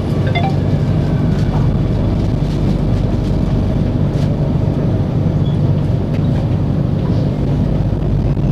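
Singapore MRT Circle Line train running through a tunnel, heard from inside the carriage: a steady low rumble with a constant hum and a few faint clicks.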